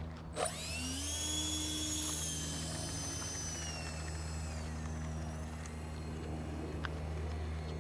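Twin 64 mm electric ducted fans of a radio-controlled A-10 model spooling up to a high whine about half a second in. The whine holds for a few seconds and then eases down as the model taxis.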